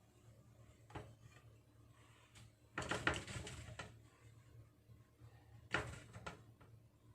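Kitchen handling noises from preparing food by hand: a single light knock about a second in, then two short bouts of clatter and rustling, the longer about three seconds in and a shorter one near six seconds.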